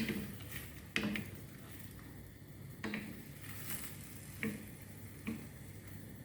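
A cooking utensil knocking against a pot five times at irregular intervals, about a second or more apart, each knock with a brief ring, as the dish is stirred and seasoned.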